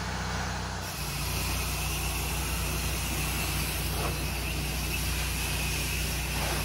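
A pressure-washing rig's engine running steadily, with a steady hiss of water from rain and a spray wand rinsing. The sound changes abruptly about a second in.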